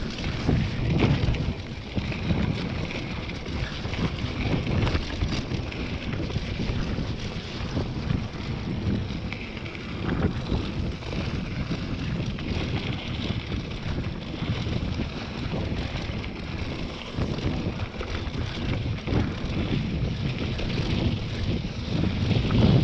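Wind buffeting the camera microphone on a mountain bike descending a dirt trail, with tyre noise and frequent knocks and rattles from the bike over rough ground.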